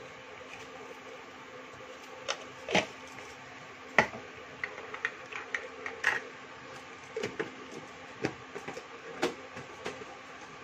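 Tea water boiling in a small steel pot on an induction cooktop: irregular sharp pops and crackles of bursting bubbles over a steady hum.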